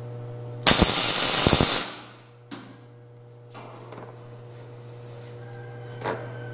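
MIG welder laying a short tack weld on a steel Jeep frame: a loud burst of arc crackle lasting just over a second, starting about two-thirds of a second in. A low steady hum runs underneath.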